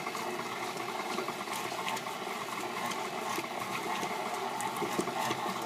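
Electric stand mixer running steadily, its beater churning and shredding cooked pork in the bowl, with faint scraping and clicks over the motor's hum.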